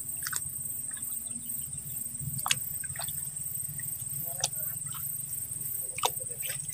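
Insects chirring steadily at a high pitch. Over it come a few short, sharp splashes and clicks of hands pushing rice seedlings into flooded paddy mud.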